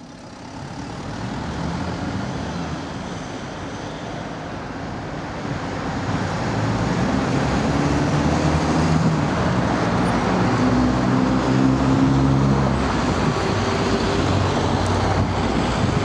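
Steady low engine rumble that swells about six seconds in, with a low hum strongest near the middle.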